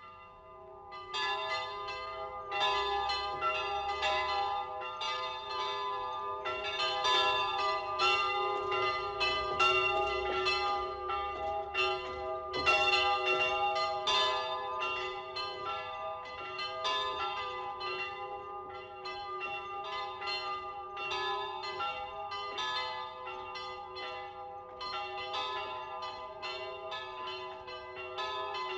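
Church bells pealing, several bells struck in quick succession with their tones ringing on and overlapping, starting about a second in.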